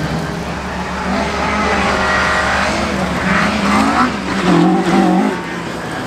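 Ford Escort Mk2 rally car driven hard past at stage speed, its engine note rising and dropping as it accelerates, with tyres scrabbling through wet gravel. The engine is loudest about four and a half seconds in as the car goes by.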